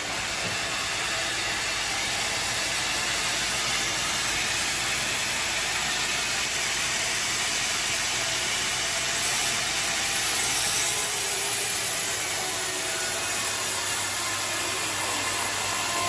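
Large bandsaw mill running steadily, its band blade ripping lengthwise through a big teak log. The steady saw noise swells slightly about ten seconds in.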